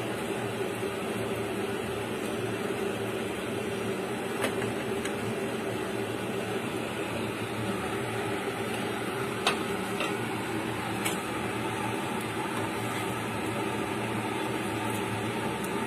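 A steady mechanical hum in the kitchen, with a faint steady tone in it, and a few light clicks scattered through it.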